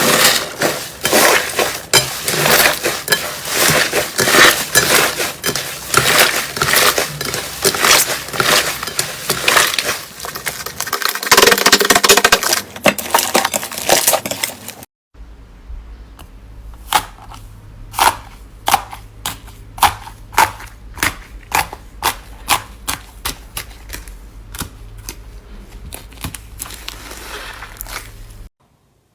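Slime being squeezed and pressed by hand, with dense, loud crunching and crackling for about the first half. After a cut, slower separate pops and clicks follow, about two a second, over a low hum.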